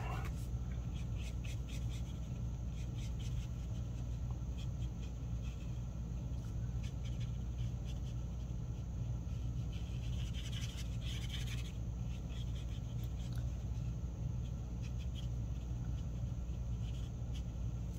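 Faint scratching of a felt-tip marker colouring on card stock, in short strokes, with a brief denser run of strokes about ten seconds in, over a steady low hum.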